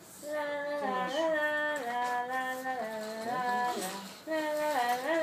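A voice singing a simple tune in held notes that step up and down in pitch, with a short pause about four seconds in.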